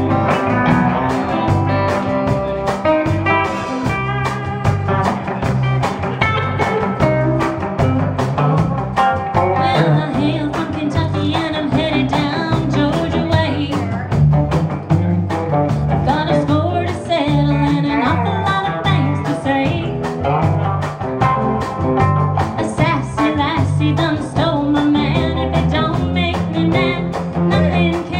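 Live band playing a rock-and-roll style song: drum kit keeping a steady beat under electric guitars, acoustic guitar and bass, with a woman singing.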